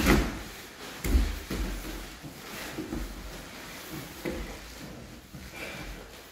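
Two grapplers' bodies and bare feet thudding and scuffing on foam mats as they scramble, with gi cloth rustling. The two heaviest thuds come right at the start and about a second in, followed by lighter knocks.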